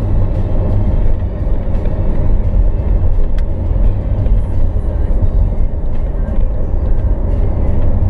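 Steady low rumble of tyre, road and engine noise heard inside a moving car's cabin.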